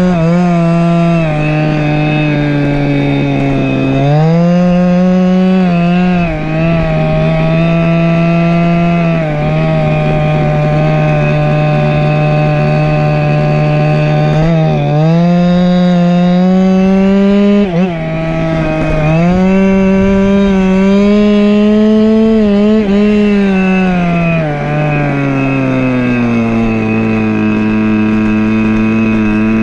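Go-Ped scooter's small two-stroke engine running under way, its pitch rising and dipping with the throttle several times, then dropping lower over the last few seconds as it eases off.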